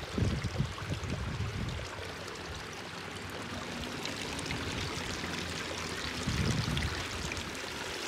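Shallow water running and trickling steadily through the stone channel of an outdoor water feature. Low rumbles come and go in the first second or so and again about six seconds in.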